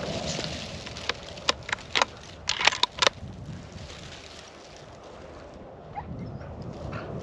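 Footsteps crunching through dry stubble, with a quick run of about eight sharp clicks and knocks between about one and three seconds in.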